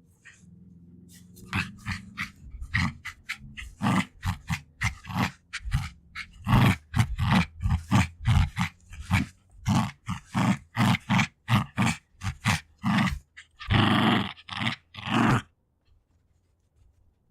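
Jack Russell Terrier growling while fighting for a toy, in quick rhythmic pulses about three a second. It ends in two longer, harsher growls and then stops.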